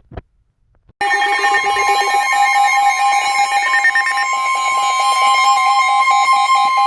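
Electronic emergency alert tone: a loud, pulsing multi-tone pattern starting about a second in, with a steady high tone joining partway through, announcing a new weather warning.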